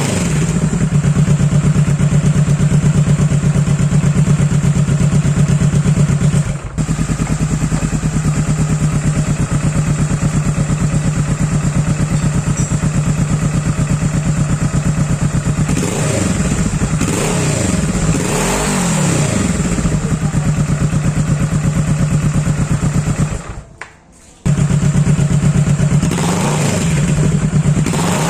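Motorcycle exhaust running at a steady idle, with the throttle blipped so the revs rise and fall twice in the second half. The sound dips briefly about a quarter of the way in and cuts out for about a second near the end.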